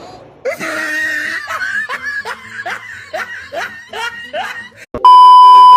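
A person laughing in a quick run of rising, squealing bursts, about two a second. Near the end a loud steady bleep tone cuts in for about a second.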